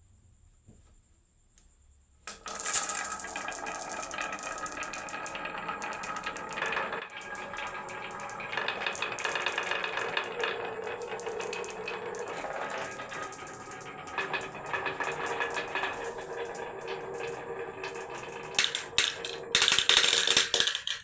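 Many marbles rolling and clattering down a HABA wooden marble run, starting about two seconds in as a dense rattle of clicks with a ringing hum from the track, and ending in a louder burst of clatter near the end.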